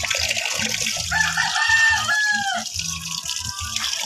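A rooster crows once, starting about a second in and lasting about a second and a half, with a falling end. Under it, tap water runs and splashes into a metal basin as fish are rinsed by hand.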